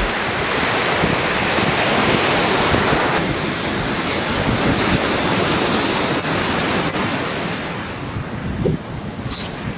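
Sea surf breaking on a beach in a steady wash, with wind buffeting the microphone.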